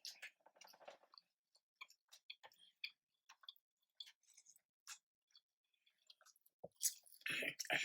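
Faint chewing of fried chicken and waffles: scattered small crunches and wet mouth clicks. A louder burst of eating noise comes near the end.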